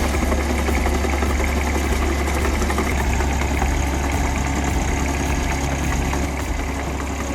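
Heavy earthmoving machine's diesel engine running steadily with a deep, constant low drone.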